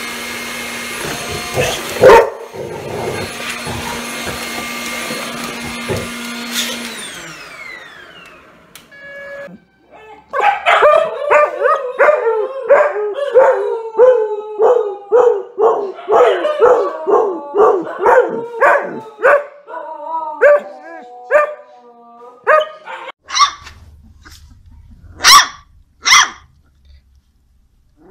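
A stick vacuum cleaner runs with a steady whine, with a knock about two seconds in, then winds down in pitch as it stops. After a short pause a dog barks over and over, about two barks a second, ending in a few drawn-out howl-like calls. A few sharp, loud barks come near the end.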